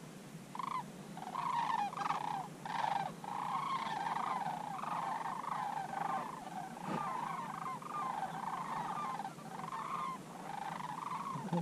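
A flock of sandhill cranes calling: many rolling, wavering calls overlapping into a steady chorus from about a second in.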